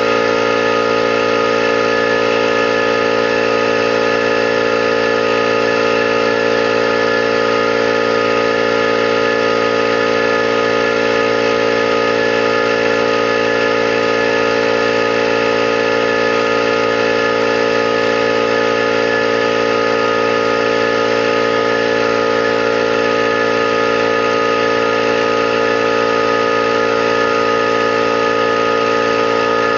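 21-gallon air compressor running steadily, its motor and pump holding one even hum with a whine above it.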